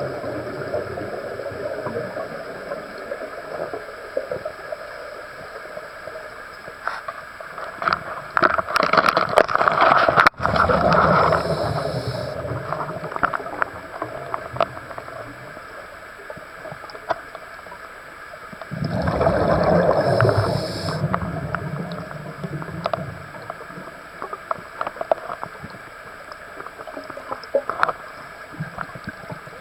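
A scuba diver breathing through a regulator, heard underwater: long surges of exhaled bubbles rumbling and crackling about a third of the way in and again about two thirds in, roughly ten seconds apart, with faint clicking and hissing between breaths.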